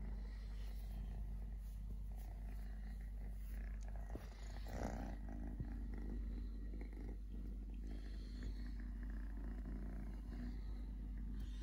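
Tabby kitten purring steadily, close to the microphone, while being petted. A brief louder sound breaks in about halfway through.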